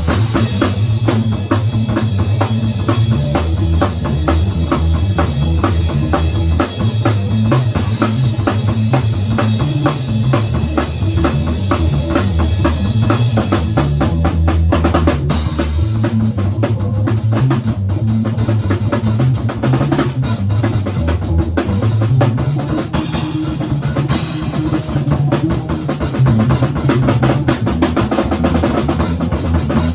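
Free improvised rock jam: a drum kit plays a busy pattern of kick, snare and cymbals over a bass guitar line moving around in the low register. About halfway through, the cymbals drop back and the drumming thins out.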